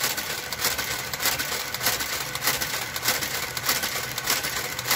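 Brother KG-93E motorised garter carriage knitting a row on a Brother knitting machine bed: a steady motor hum under a fast, uneven run of clicks as the needles are worked.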